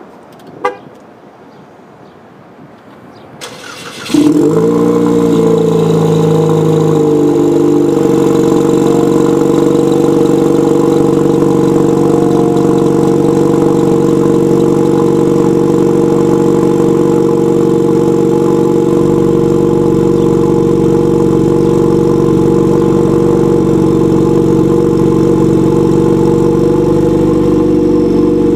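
A 2014 Cadillac ATS's 2.0L turbocharged four-cylinder starts about four seconds in, after a single click, through a CORSA cat-back exhaust. Its fast idle wavers for a few seconds, then settles into a steady idle.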